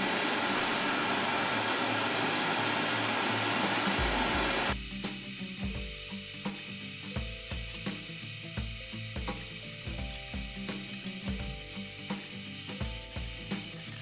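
Vacuum cleaner sucking ash and debris out of a gas grill's firebox. It gives a loud rushing hiss for the first four and a half seconds, then drops to a quieter run with a steady high whine. Repeated knocks and clatters of metal follow as the hose nozzle works over the heat shields and burners. Background music is faintly audible underneath.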